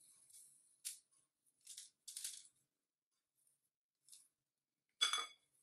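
A silicone spatula scraping and folding whipped egg whites with grated Parmesan in a glass bowl: a few short, soft scrapes and swishes. Near the end comes a brief, louder ringing knock.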